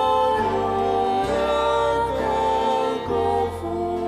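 Slow Russian hymn, sung with musical accompaniment: long held melody notes that move step by step to new pitches about once a second.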